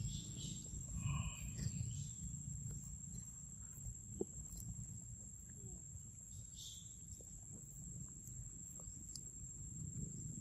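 Quiet forest ambience: a steady, high-pitched insect tone over a low rumble, with a few faint chirps and small clicks.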